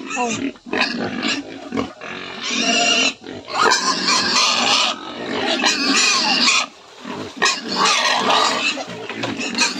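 Several young pigs squealing and grunting, a run of loud, harsh calls with short breaks between them: hungry pigs calling for their feed.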